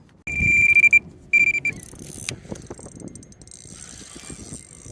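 Electronic carp bite alarm sounding a loud, steady high tone in two stretches in the first two seconds as a fish takes line. Irregular mechanical clicking and knocking follows, from the rod and reel being handled.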